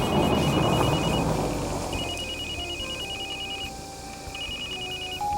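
Telephone ringing with a fast trilling two-tone ring, in three bursts: one at the start, a longer one about two seconds in, and a short one near the end. A broad rush of noise fades away under the first ring.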